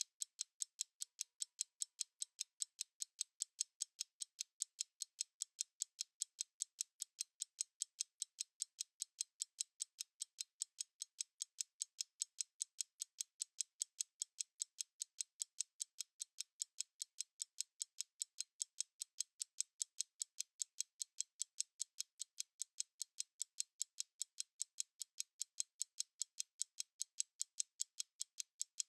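Stopwatch ticking: light, high ticks in a steady, even rhythm of a few per second.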